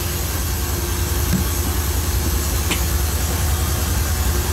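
Steady low, engine-like machine drone with an even hiss over it, and one short click about two and a half seconds in.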